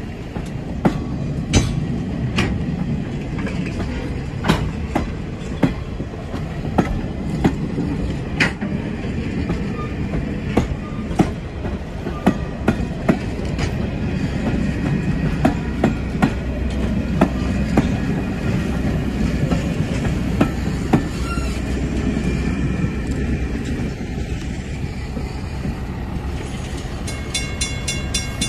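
Passenger coaches rolling past on jointed track: a steady low rumble with sharp wheel clicks over the rail joints about once a second. Near the end a level-crossing bell rings in a quick, even rhythm.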